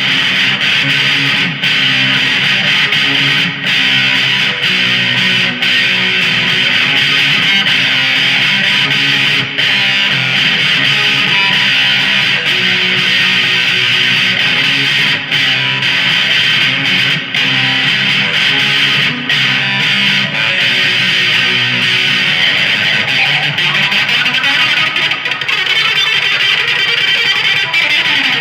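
Amplified electric guitar playing without pause, a steady run of picked notes and chords.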